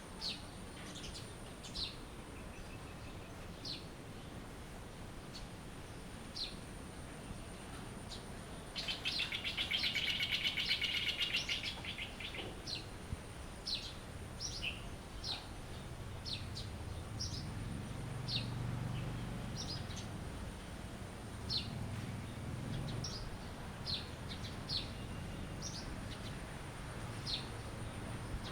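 Songbirds chirping: short high chirps repeated every second or so, with a louder rapid trilling song from about 9 to 12 seconds in. A faint steady high tone runs underneath.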